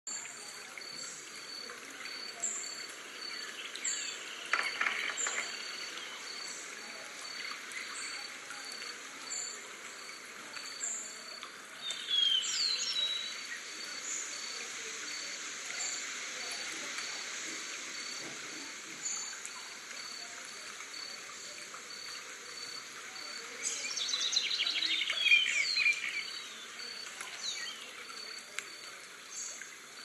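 Forest night ambience: a steady hiss with a high call repeating evenly about twice a second, and bird-like calls with quick pitch sweeps. A short call about twelve seconds in and a longer, louder trilling call near the end stand out.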